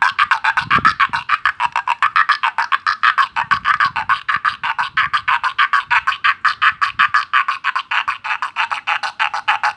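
Frog sound maker, a goat-skin membrane sounded by a rosin-coated string rubbed with a stick, giving a fast, even train of raspy croaks, about seven or eight a second, imitating a green paddy frog.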